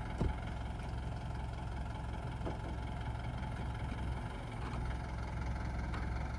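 An SUV's engine running at low revs with a steady low rumble as it takes up a tow strap to pull another SUV out of the mud.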